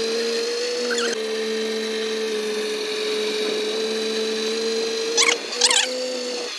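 Small hire motorboat's motor running with a steady whine. Two short high calls come just after five seconds in.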